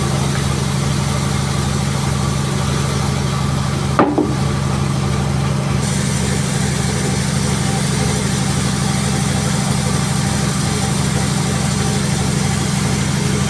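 Sawmill engine running steadily at an even pitch, with a single sharp knock about four seconds in.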